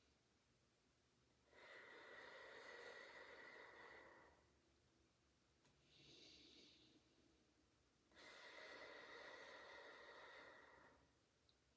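Slow controlled breathing, faint: two long exhales through the mouth into a loosely closed fist, each about three seconds, with a short inhale through the nose between them. The inhales are kept shorter than the exhales, as in a breathing exercise against coughing.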